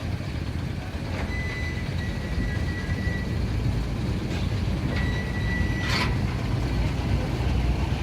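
Heavy vehicle engines running with a low steady rumble. Twice a high, steady electronic beep tone sounds, first for about two seconds and then for about one second. A short hiss comes at the end of the second beep.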